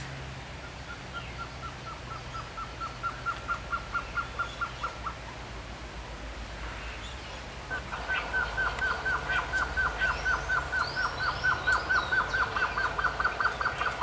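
Male blue-crowned trogon singing: runs of short, evenly spaced notes, about four to five a second. The first run grows louder over about four seconds; a second, louder and longer run begins about eight seconds in.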